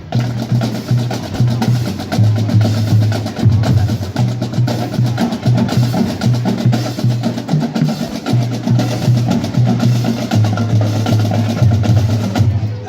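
Marching band drumline playing a loud percussion passage: rapid snare strokes and rolls over a rhythmic pattern of low drum notes.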